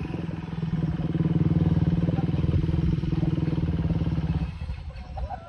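Motorcycle engine running with a steady, even beat, dropping away about four and a half seconds in.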